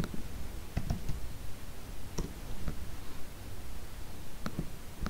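Scattered clicks from a computer keyboard and mouse, about half a dozen sharp taps spread over a few seconds over a faint low hum.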